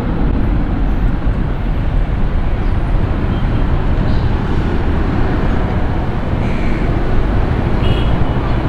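Jet engines of a Singapore Airlines Boeing 787-10 running as the airliner rolls along the runway: a loud, steady low rumble.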